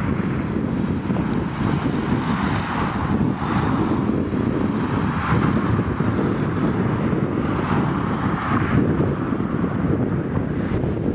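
Wind buffeting the microphone, a loud, continuous rumble that swells and eases in gusts.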